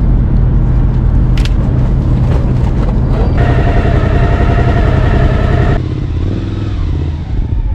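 Engine idling with a loud, steady low rumble, with a single click about a second and a half in. A steady higher tone sounds over it for about two seconds midway, then cuts off suddenly along with much of the rumble.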